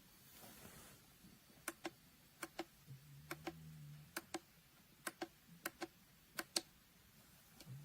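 Faint clicks of a Suright sunrise alarm clock's buttons being pressed and released: about seven quick double clicks at uneven intervals, with a short low hum partway through.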